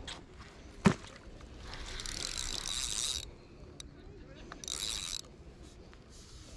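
A sharp knock a little under a second in, then a large spinning reel on a carp rod whirring and ratcheting in two spells, one about a second and a half long and a shorter one, as a hooked carp is played.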